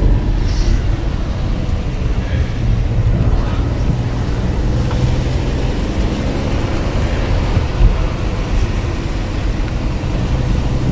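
A car driving, heard from inside the cabin: a steady low rumble of engine and tyres on the road.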